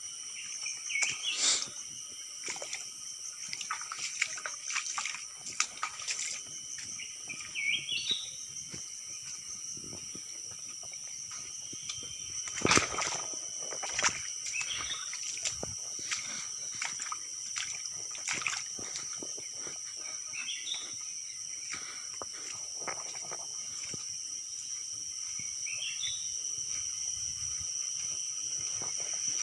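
Forest ambience: a steady high insect drone, a short rising bird call repeated five times at intervals of about five to six seconds, and scattered footsteps and knocks on the stony stream bed.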